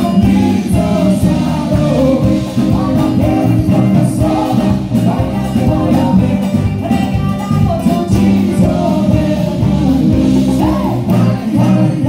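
Live band playing a merengue: a man singing over guitar, bass and a steady beat.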